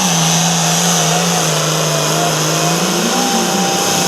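Hot farm pulling tractor's diesel engine running loud and steady at high revs, its pitch wavering and rising briefly near the end.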